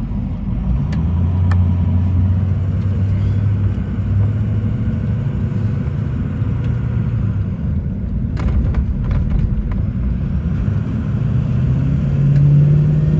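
Vehicle engine and road rumble heard from inside a moving vehicle, with the engine note rising from about eleven seconds in as it speeds up. A short cluster of clicks comes about eight seconds in.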